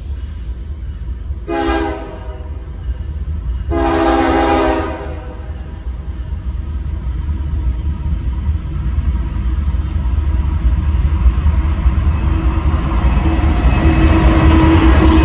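Freight train's diesel locomotive horn, a multi-chime air horn, giving a short blast and then a longer one, the end of its signal for the grade crossing. The low rumble of the train's diesel engines and wheels then grows steadily louder as the lead locomotives come up and pass close by.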